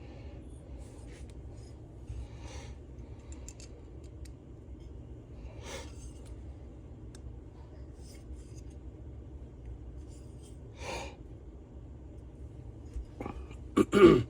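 Parts and tools being handled on a workbench during a two-stroke engine rebuild: scattered light scrapes and clicks over a steady low hum, then two sharp knocks close together near the end.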